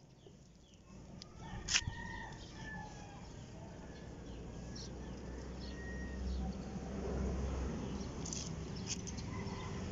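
Faint outdoor background of a low rumble and a few distant bird calls, with a sharp click a little under two seconds in. Soft scattered crackles of hands working coco coir into potting soil.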